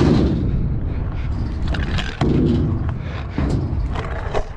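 Stunt scooter riding on skatepark ramps: a continuous rumble of the wheels rolling on the ramp surface, with a few sharp knocks and clacks as the scooter hits the ramp.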